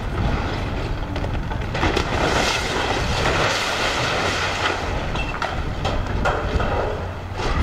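Demolition excavator tearing apart a building's wooden upper structure: timber cracks and splinters and debris clatters down in a run of sharp cracks, busiest from about two to four seconds in, over the machine's engine running.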